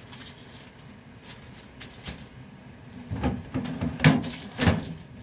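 Kitchen handling sounds of shaping raisin dough into buns and setting them on a paper-lined baking tray by a wooden board. There are a few light taps at first, then a cluster of thumps and rustles about three seconds in, the loudest near the end.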